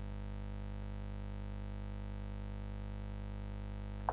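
Steady electrical mains hum, a low buzz that holds unchanged, with a short click near the end.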